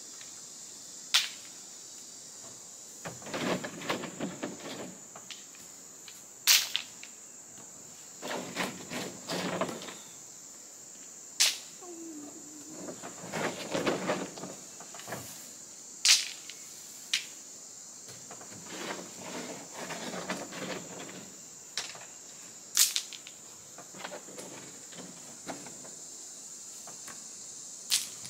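A rake scraping and dragging through loose white gravel in short bursts every few seconds, with single sharp clicks of stones knocking together. A steady high insect drone runs underneath.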